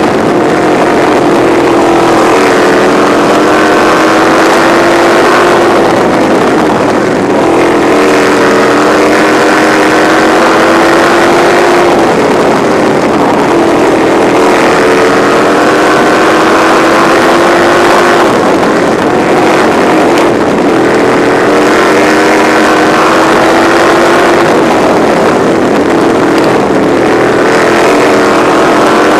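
Winged sprint car's engine at racing speed, heard close from on board, its pitch climbing along the straights and falling back through the turns several times.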